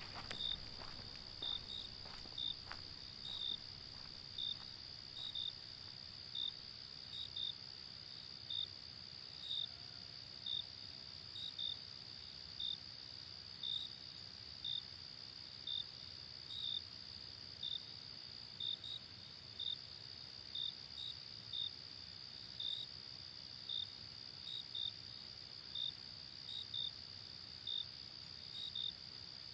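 Crickets at night: a steady high-pitched insect trill, with a single cricket chirping over it about once or twice a second at an uneven pace.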